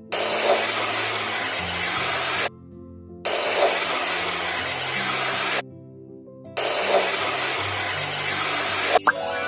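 Hissing spray sound effect, three bursts of about two and a half seconds each with short gaps between, over soft background music.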